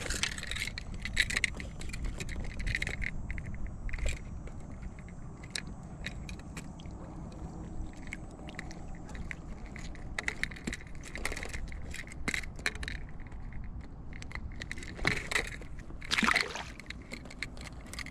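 Wind rumbling on the microphone under scattered sharp clicks, scrapes and rustles of a crappie being handled and unhooked on a kayak, with a few louder knocks near the end.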